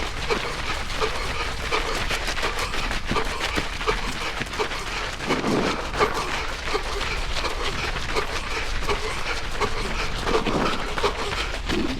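A runner's heavy, wheezing panting with each stride, over rhythmic footfalls on the path and wind rumble on the microphone.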